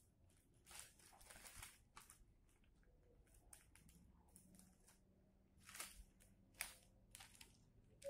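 Near silence with a few faint, short rustles and scrapes from a vinyl sticker sheet being handled.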